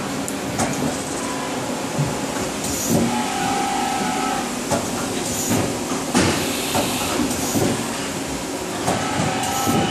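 Mori Seiki SL-25A5 CNC lathe under power: a steady machine hum with scattered clunks and clicks, a few short hisses, and a couple of brief whines.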